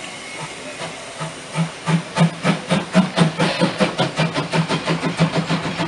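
Narrow-gauge steam tank locomotive, a DR class 99.77 2-10-2T, hissing steam from its open cylinder drain cocks, then chuffing at about four beats a second. The chuffs grow louder about a second and a half in: the engine is working steam as it moves off.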